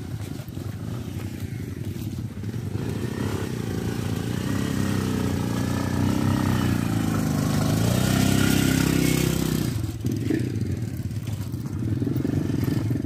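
Motorcycle engine running on a rough dirt trail. It grows louder as the bike comes close, its pitch rising and falling with the throttle, then drops off suddenly about ten seconds in, leaving a fainter engine.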